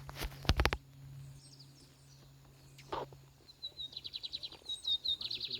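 Bigodinho (lined seedeater) singing a fast, high trill of rapidly repeated notes starting about three and a half seconds in. A few sharp knocks in the first second and a faint low hum come before the song.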